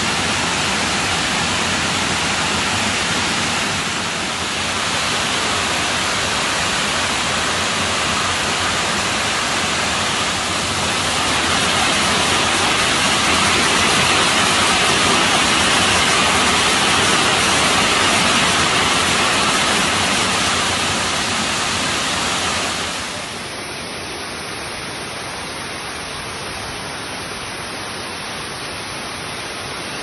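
Water rushing steadily over a series of low limestone cascade steps into pools. About three-quarters of the way in, the sound drops to a quieter, hissier rush.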